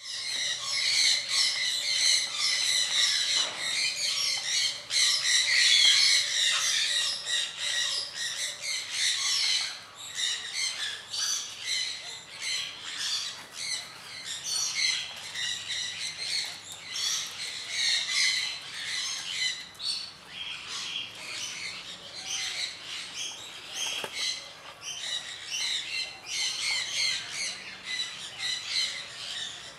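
Many birds chirping and squawking at once in a dense, continuous chatter, loudest in the first ten seconds or so.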